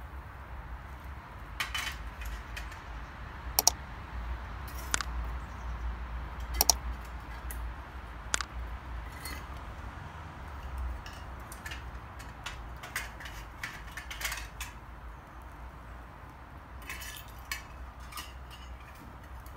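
Scattered light metallic clinks and taps, such as pieces of scrap metal being handled, with a few sharper ones about four and seven seconds in, over a low steady rumble.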